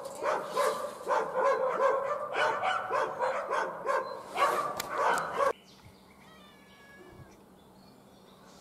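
Small Kokoni dog barking in quick, repeated yaps, several a second, that stop abruptly about two-thirds of the way through, leaving a quiet outdoor background with a few faint high chirps.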